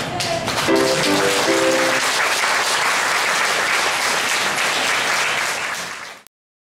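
Audience applauding, with a few short pitched notes over the first two seconds; the applause cuts off suddenly about six seconds in.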